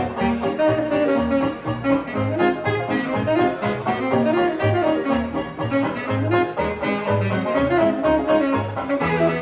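Small traditional jazz band playing live: a saxophone carrying the melody over a string bass that walks steady low notes, about two to the second.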